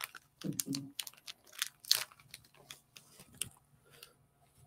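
Scattered light clicks and taps of small plastic model-kit parts being handled on a desk, with a brief low murmur about half a second in.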